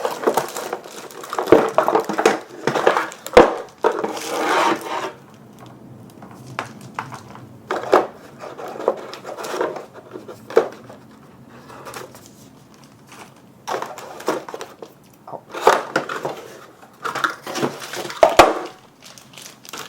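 Keyboard being lifted out of its cardboard box and packaging: rustling, scraping and crinkling with scattered knocks. The rustling is busiest in the first few seconds, and the loudest knocks come about three and a half seconds in and near the end.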